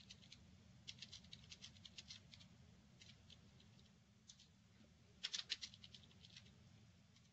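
Faint clicking of computer keys typed in short irregular runs, a flurry about a second in and another around five seconds in, over a steady low electrical hum.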